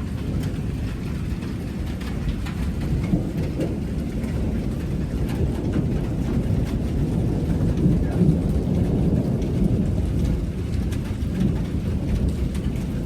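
Thunderstorm: a steady low rumble with rain falling, swelling slightly about two-thirds of the way through.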